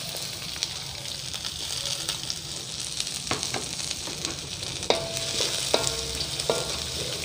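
Chopped onions sizzling steadily in hot sesame oil in a metal kadai. In the second half, a wooden spatula stirs them and knocks against the pan a few times, each knock ringing briefly.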